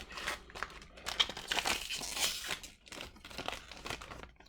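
Foil wrapper of a hockey card pack crinkling and crackling in a quick, uneven run as it is handled, stopping at the end.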